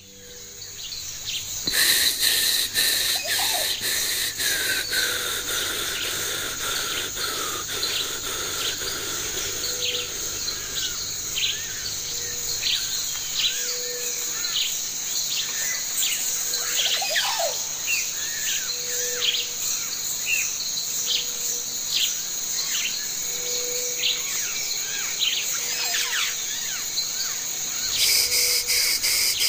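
Outdoor nature ambience of birds chirping and calling over a steady high insect chorus, with a soft low pip repeating about every second and a half. It fades in over the first couple of seconds. Near the end a louder steady rush comes in, like a mountain stream.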